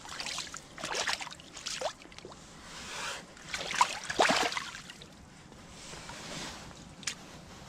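Water sloshing and splashing in irregular bursts as hands work a landed steelhead and a landing net in shallow creek water, with a single sharp click near the end.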